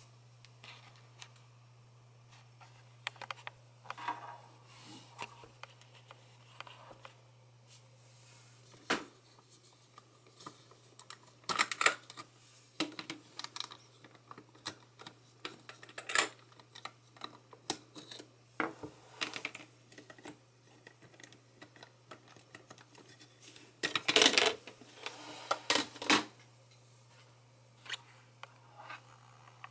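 Plastic LEGO bricks clicking and knocking as the heart-shaped red brick cover is handled and pulled off the engine model by hand: scattered single clicks, with a louder cluster of clatter near the end.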